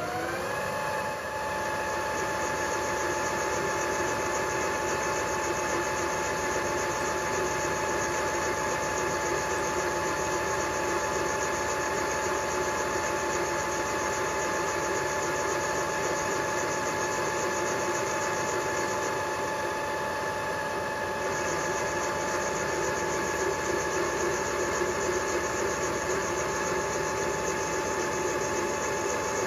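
Milling machine spindle running a boring head, with a steady whine that rises to pitch in the first second as it spins up, then holds steady while the cutter bores out a valve seat recess in a cast-iron A-series cylinder head to take a hardened unleaded seat insert.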